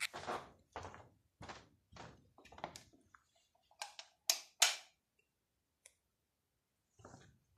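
A run of thuds and knocks from things being handled and moved about in a search, then three sharper knocks close together about four seconds in, followed by a short quiet stretch before more knocking near the end.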